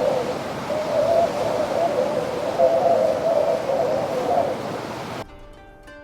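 Sound effect: a steady hiss with a wavering hooting tone riding on it. It cuts off about five seconds in, giving way to a quieter cluster of steady electronic tones.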